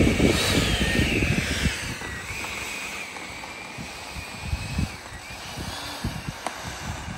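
Twin electric ducted fans of a Freewing B-2 Spirit RC model jet whining as it taxis on the ground. The pitch climbs in the first second, sags, holds steady, then rises again near the end as the throttle changes, over gusty wind buffeting the microphone.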